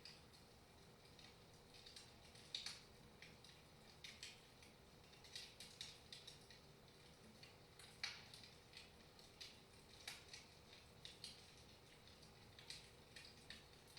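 Wood fire crackling softly in a fireplace: irregular small pops and snaps, with louder ones about two and a half seconds and eight seconds in.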